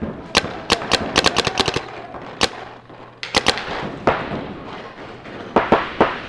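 Paintball markers firing sharp pops: single shots, then a quick string of about half a dozen a little over a second in, a pair about three and a half seconds in, and a few more near the end, echoing in a hall.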